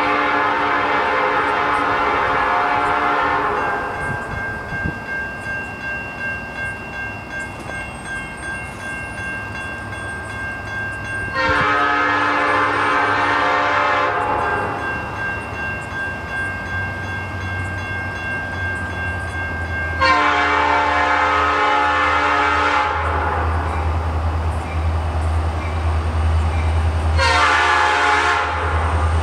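An EMD diesel freight locomotive's air horn sounding the grade-crossing signal: three long blasts several seconds apart, then a short one near the end, warning of the train's approach to the crossing. Between blasts a crossing bell rings steadily, and a low diesel engine rumble grows louder as the locomotives close in.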